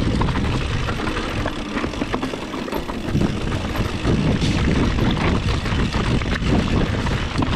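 Rocky Mountain Instinct mountain bike riding down rocky singletrack. Wind rumbles steadily on the action camera's microphone, over many short clatters from the tyres and the bike jolting over stones.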